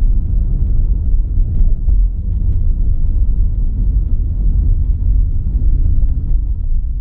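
Steady low rumble of a car driving on the road, engine and tyre noise without any clear pitch, beginning to fade near the end.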